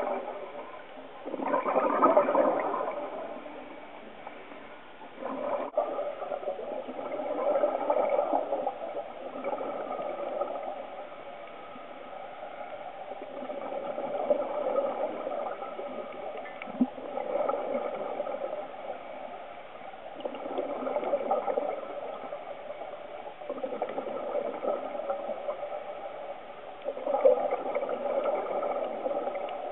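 Scuba regulator exhaust: a diver's exhaled air bubbles, heard underwater, coming in bubbling surges every few seconds in time with breathing.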